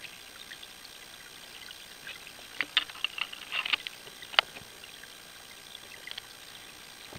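Underwater sound of a flowing river: a steady faint hiss with scattered clicks and crackles. The clicks bunch together in the middle, and the sharpest single click comes about four seconds in.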